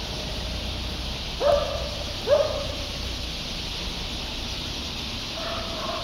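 Massed chatter of a large flock of birds in a dense tree, heard as a steady high hiss of calls. A dog barks twice, about a second and a half and two and a half seconds in; these are the loudest sounds.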